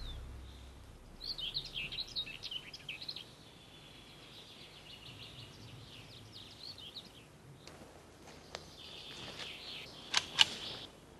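Forest birdsong: a songbird's quick, high chirping phrases a second or so in, then fainter song. Near the end come two sharp cracks a split second apart, the loudest sounds.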